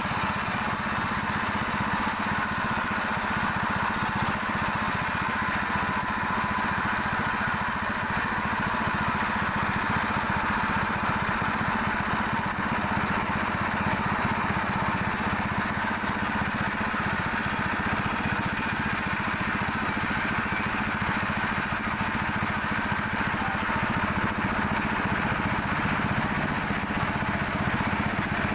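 Sawmill machinery running with a steady drone, even in level, with no sharp breaks.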